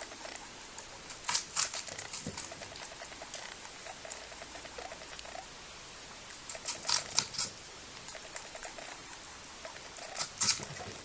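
A lop-eared rabbit chewing an apple: quick, soft crunching throughout, with three bursts of louder, crisper crunches from bites, about a second in, around the middle and near the end.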